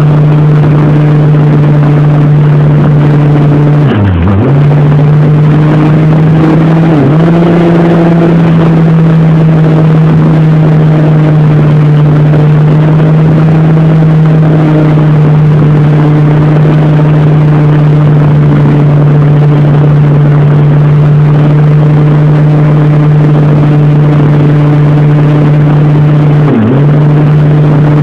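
Brushless electric motor and propeller of an RC model Cessna 182 running steadily at high throttle in flight, a loud even whine over a rush of air noise. The pitch dips briefly and recovers three times, about four seconds in, about seven seconds in and near the end, as the throttle is eased and opened again.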